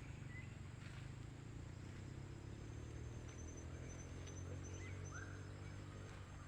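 Faint outdoor ambience: small birds giving a few short chirps and a rapid high trill from about three seconds in, over a low steady rumble.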